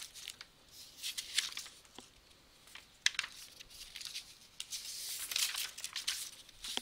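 Faint, irregular rustling and crinkling, with a few sharp clicks around two and three seconds in.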